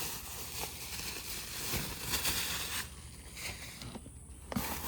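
Rustling and a few light knocks as small figurines are handled and unpacked, with a quieter spell near the end.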